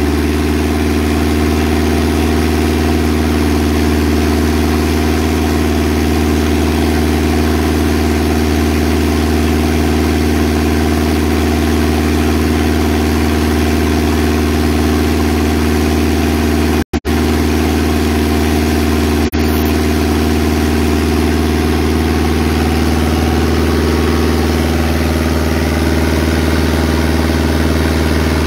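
An engine runs steadily with a deep hum under the hiss of a high-pressure water jet washing oyster shell and seed off the deck; the sound drops out for an instant about two-thirds of the way through.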